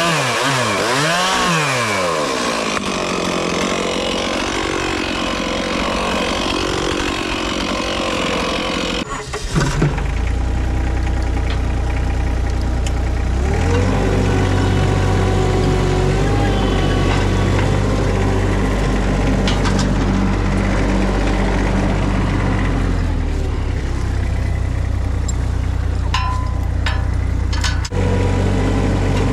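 Chainsaw revving up and down as it cuts brush. A little over nine seconds in it gives way to a machine engine running steadily at low pitch, with a steady whine joining a few seconds later, typical of a mini skid steer running.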